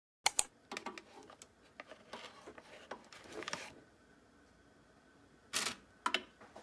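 Metal utensils, a fork and kitchen tongs, clicking, tapping and scraping against thin plastic food containers in irregular light knocks. A louder scrape and a couple of clicks come about five and a half seconds in.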